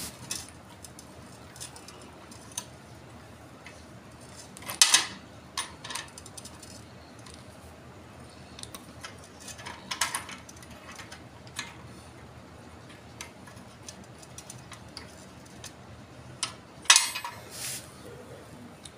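Sparse metal clinks and scrapes of hand tools, a screwdriver and a spanner, on the steel nuts and bolts that fasten a handle to an iron tool head as they are tightened. The louder clinks come about five, ten and seventeen seconds in.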